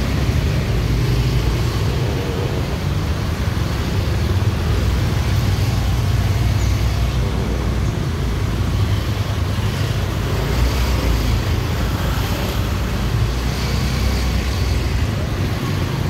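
Motor scooters running and passing close by in a narrow street, over a steady low rumble of traffic.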